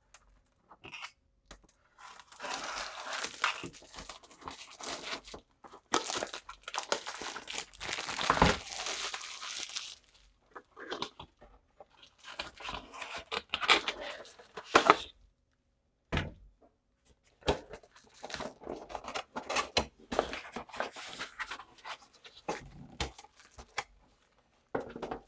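A cardboard box and its plastic packaging being opened and rummaged through: irregular bursts of rustling, crinkling and tearing, with a few knocks between them.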